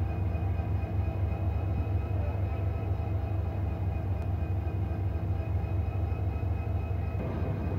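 Diesel locomotive engine running steadily: a constant low drone with faint steady higher tones above it.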